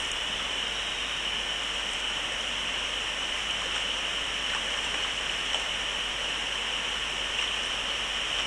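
Stream water running steadily over shallows, with a few brief, faint splashes from a hooked brown trout thrashing at the surface.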